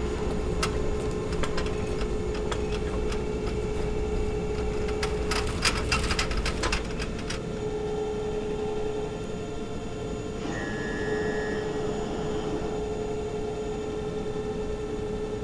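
Hospital machine ambience: a steady low hum with a held mid-pitched tone, a run of scattered clicks and ticks in the first half, and a brief high tone about ten seconds in.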